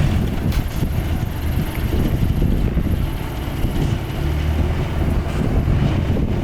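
Heavy diesel earthmoving machinery running steadily, its low engine drone swelling about four seconds in, with wind noise on the microphone.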